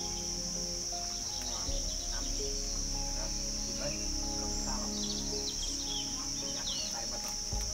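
Steady high-pitched drone of forest insects, with a few short bird chirps about five seconds in.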